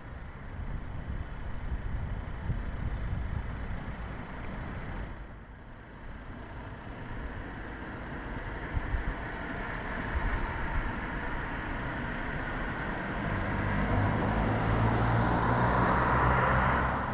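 Car engines running in a car park and on the road, with one vehicle growing louder over the last few seconds.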